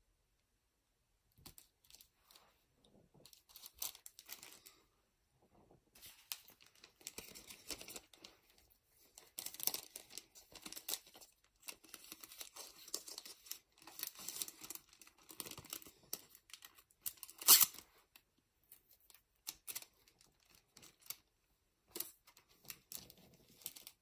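Foil Pokémon booster-pack wrappers and clear plastic resealable bags rustling and crinkling as they are handled, in irregular bursts, with one sharp loud crackle about two-thirds of the way through.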